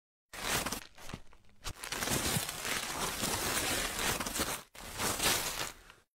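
Crinkling, rustling noise in two stretches, about four seconds and then about one second, with a short break between. Both start and stop sharply, like an edited sound effect.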